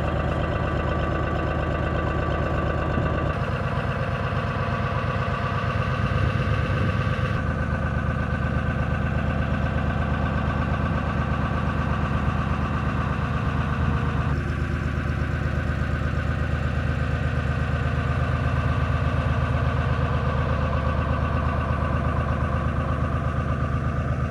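A small boat's inboard engine running steadily under way, with an even pulsing beat and a few small shifts in tone.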